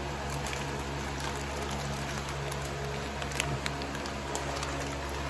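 Plastic fish-shipping bags crinkling and crackling as they are handled, with a couple of sharper crackles about three and a half seconds in, over a steady background hum.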